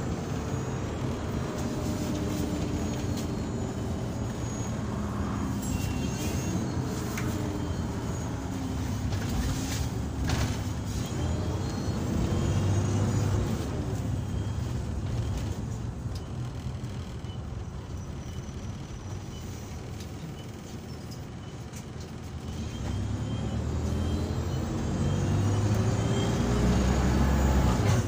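Optare Solo SR single-deck bus heard from inside the saloon, its engine being driven hard with engine notes that rise and fall through the gears and a high vacuum-cleaner-like 'hoovery' whine. It eases off about two-thirds of the way through, then pulls hard again near the end.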